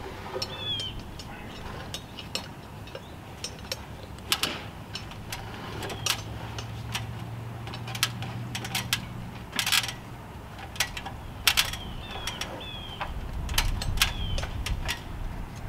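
Irregular clicks and knocks as a man climbs an aluminium ladder carrying a long 2x6 fascia board, boots on the rungs and the board knocking against the wooden framing. Short high chirps come now and then, and a low rumble rises near the end.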